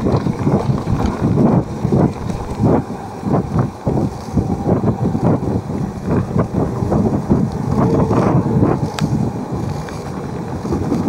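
Wind buffeting the microphone of a camera riding along on a mountain bike, a continuous gusty rush with irregular low thumps and a few sharp clicks near the end.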